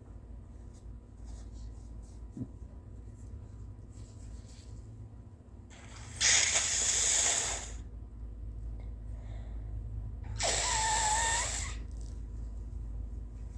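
A person blowing a snotty, congested nose hard, twice, each blow lasting about a second and a half: the first starts about six seconds in, the second about ten seconds in with a wavering pitch in it.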